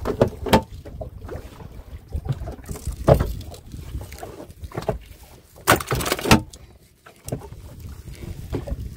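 Irregular splashing and knocks of water and gear while a fishing net is hauled and checked, over a low rumble. The loudest burst of splashing comes about six seconds in.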